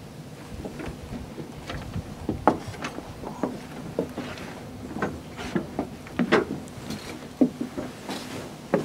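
Footsteps and shuffling on the ceremony platform: irregular light knocks, one or two a second, with sharper ones about two and a half seconds in and near the end.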